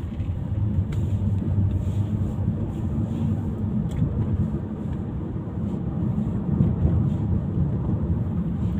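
Steady low rumble of a moving vehicle on the road.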